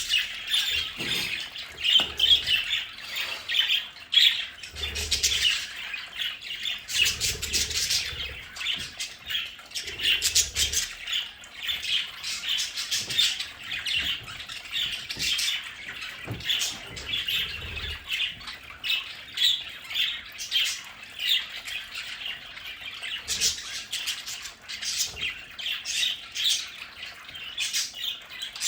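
A flock of budgerigars (budgies) chattering, chirping and squawking nonstop, with a few soft low thumps in the first half.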